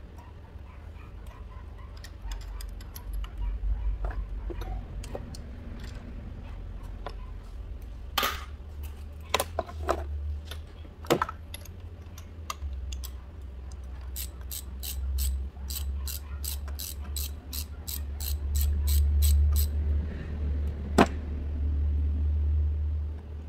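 Hand ratchet with an extension working bolts on a car engine, clicking steadily about four times a second for several seconds in the second half, with scattered sharp metal clinks of the tool before and after, over a low steady rumble.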